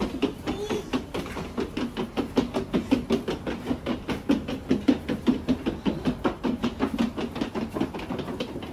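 Suitcase wheels rolling over wooden deck boards, clacking at each plank gap in a fast, even rhythm of about five or six knocks a second.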